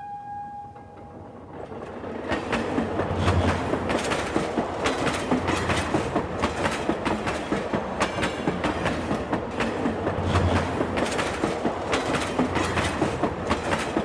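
Passenger train running fast on the rails, heard from a coach: a steady rushing rumble with a dense clatter of wheels over rail joints, building up over the first two seconds.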